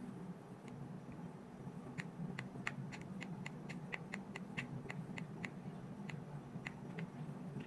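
A run of small sharp clicks, about three or four a second, starting about two seconds in and stopping about a second before the end, over a low steady hum.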